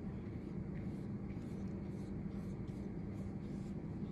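Watercolor brush stroking back and forth across watercolor paper: a run of soft, scratchy strokes over a steady low hum.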